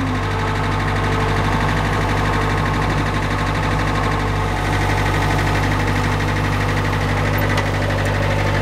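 An engine idling steadily, its running unchanged throughout.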